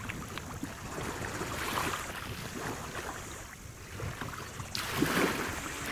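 Shallow water sloshing and splashing around a wader's hands and legs as an undersize snapper is released into it, with a stronger rush of splashing about five seconds in.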